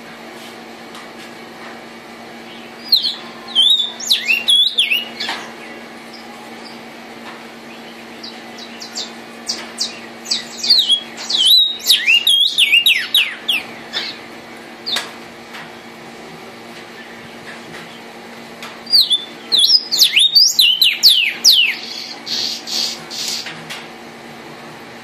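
Male vermilion cardinal singing in three bouts of rapid, sharply falling whistled notes, with pauses of several seconds between them. A steady low hum runs underneath.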